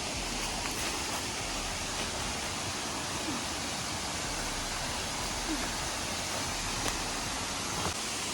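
Steady, even rush of a waterfall's falling water, with a few faint ticks.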